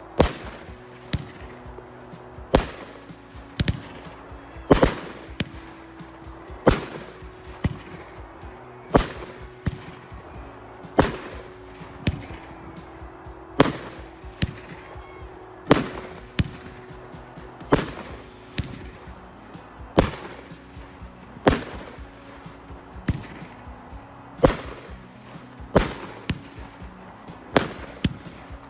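A 19-shot 1.3G consumer firework cake with 30 mm tubes firing shot after shot: sharp launch reports and bursting bangs coming every second or two.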